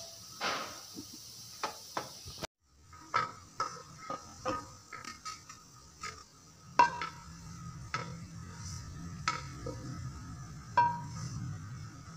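A spoon scraping and knocking against a non-stick pan and a metal tray as thick, crumbly cooked semolina aluwa is pushed out of the pan, with irregular sharp clinks, some ringing briefly.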